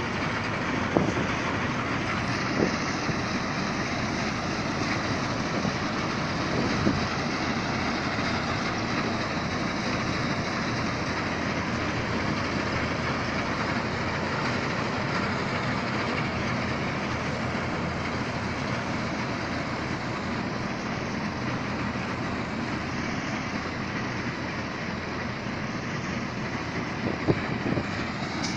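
Heavy farm harvest machinery running steadily at work, its engine and mechanism making a dense, even noise, with a few brief knocks.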